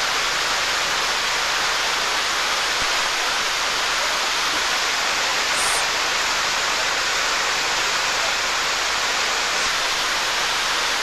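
Steady rush of white water tumbling down a river cascade and over a weir.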